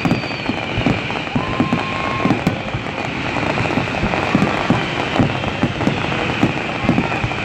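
Fireworks finale: a dense, continuous barrage of bangs and crackling, with no gaps.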